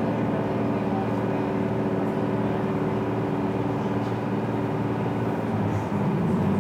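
Cataño ferry's engine running steadily underway, a constant low drone with several held hum tones, heard on board the moving boat.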